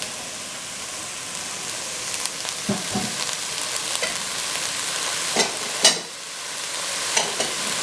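Corn kernels and chopped peppers sizzling in a pot, stirred with a wooden spoon that knocks and scrapes against the pot a few times, the loudest knock about six seconds in.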